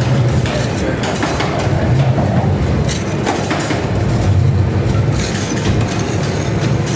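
Metal spatula scraping frozen ice cream into rolls across a chilled steel plate, in repeated short scratchy strokes over a steady low rumble.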